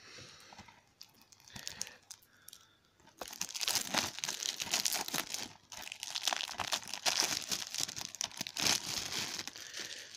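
Plastic shrink-wrap being torn open and peeled off a DVD case: light handling rustles, then from about three seconds in a dense, crackly crinkling of the film.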